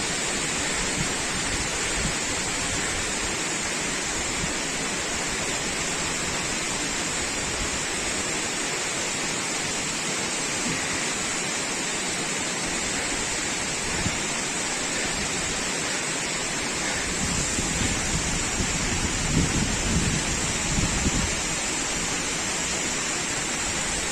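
Steady rushing roar of a tall waterfall's falling water. Low buffeting on the microphone about two-thirds of the way in.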